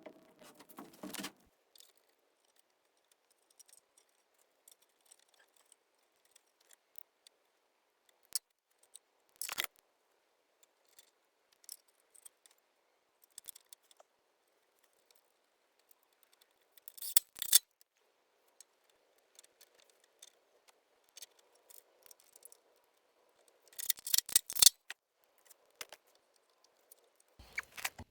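Small metal carburetor parts and hand tools clicking and clinking on a workbench as a Honda GX160 carburetor is cleaned and put back together. The sounds come in short bunches with quiet gaps between them, the loudest about two-thirds of the way through.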